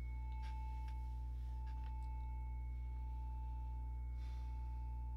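A steady, high, pure ringing tone over a low hum, with a few soft clicks and rustles in the first two seconds as a phone is set down on the floor. There is a short rustle about four seconds in.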